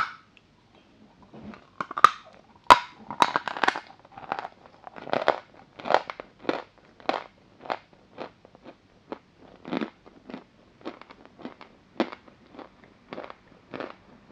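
A bite snapping off a piece of chalk, then chewing it: a few loud, irregular crunches at first, settling into a steady run of crunches a little under two a second.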